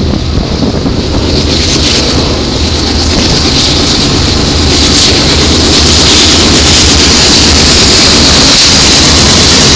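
Norfolk Southern freight train's lead diesel locomotives approaching and passing close by at speed, the engine noise building over the first five seconds and then holding loud and steady as the units go by.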